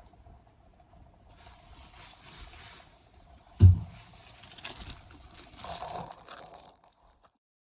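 Rustling and handling noises with one dull thump about three and a half seconds in, over a faint steady hum; the sound cuts off abruptly near the end.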